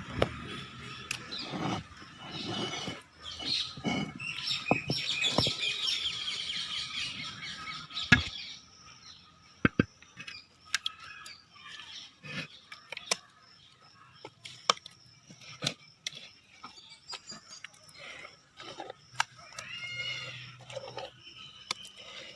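Birds chirping and calling, with scattered sharp clicks and knocks throughout.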